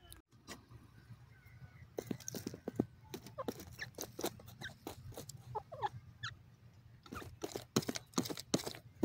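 Grey partridge giving a few short, soft gliding notes about three to six seconds in, among irregular sharp clicks and crunches that come thicker near the end.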